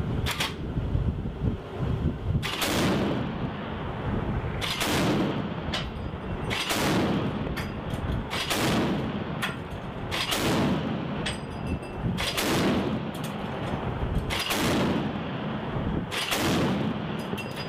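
Ship's crew-served deck guns firing at sea: about nine heavy shots, one every two seconds or so, each trailing a rolling echo.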